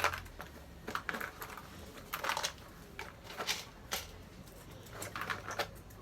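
Light clicks and rattles of game beans being scooped, dropped and knocked against the scooper and the toy chicken, coming in small irregular clusters.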